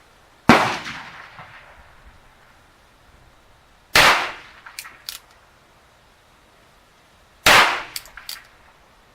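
Three shots from a Ruger New Bearcat single-action .22 LR revolver, spaced about three and a half seconds apart. After the second and third shots come small clicks as the hammer is cocked for the next shot.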